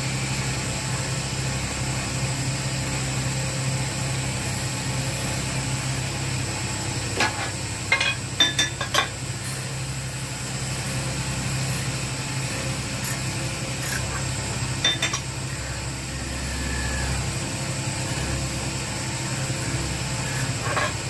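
Metal lathe running with a steady hum as a cutting tool turns a metal goblet blank. A cluster of short, sharp metallic clicks comes about seven to nine seconds in, and a couple more around fifteen seconds.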